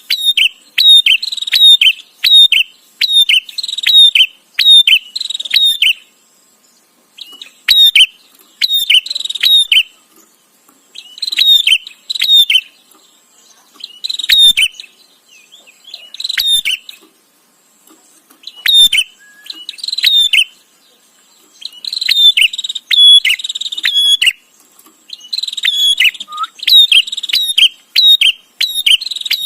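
Prenjak (a prinia) calling: runs of sharp, repeated chirps, about two a second, in bouts broken by short pauses.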